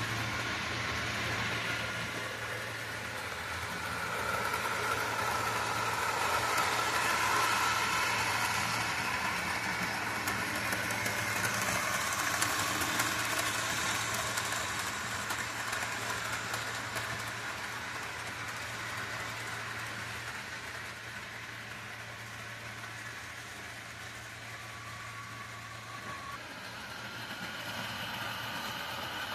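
HO scale model train running along the layout's track: a steady whirring rumble of motor and wheels on rail, louder in the middle as the train passes close, over a constant low hum.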